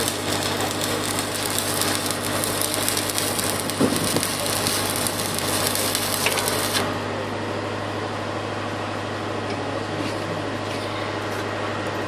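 Electric arc welding on a steel pipe repair sleeve: a steady crackling hiss from the arc that cuts off abruptly about seven seconds in. An engine runs steadily underneath throughout.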